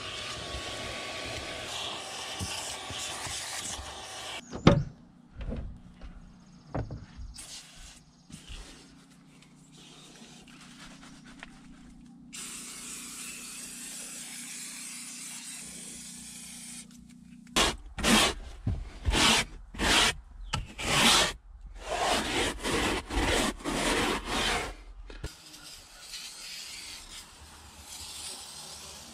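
Vacuum cleaner running on the truck's floor carpet, stopping with a knock about four seconds in, followed by a few clicks. Later an aerosol can of carpet cleaner hisses in one steady spray for about four seconds, then comes a quick run of short, loud rubbing strokes.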